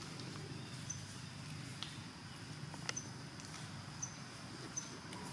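Quiet outdoor ambience: a steady low hum, short high chirps repeating about once a second, and a few sharp clicks.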